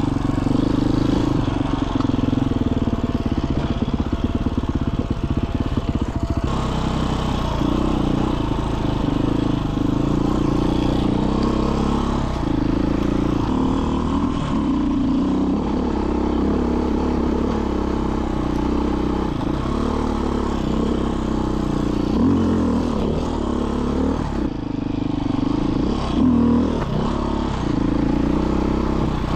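Single-cylinder four-stroke engine of a 2021 Beta 500 RRS enduro motorcycle running under way on a trail, its pitch rising and falling as the throttle opens and closes.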